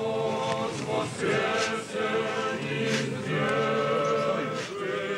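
A group of voices singing an Orthodox church chant unaccompanied, in sustained phrases with short breaths between them.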